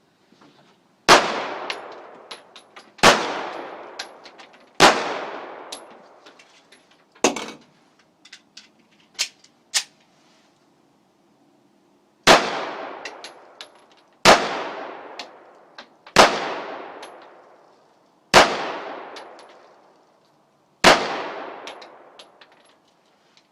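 Semi-automatic handgun fired in two strings, each shot followed by a long ringing echo. There are four shots about two seconds apart, a few lighter clicks, and a pause for a quick reload, then five more shots at the same pace.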